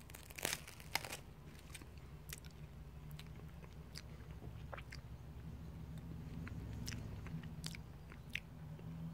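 Close-up chewing and crunching of a waffle. There are two loud crunches in the first second, then lighter, scattered mouth clicks over a low steady hum.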